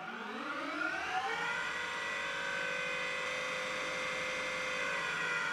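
Lathe spindle drive (a VFD-fed three-phase motor driving through a variator and toothed belt) whining as it runs up to speed, the pitch rising over about the first second and then holding steady. Near the end the spindle is switched off and starts to coast, with no braking on the drive.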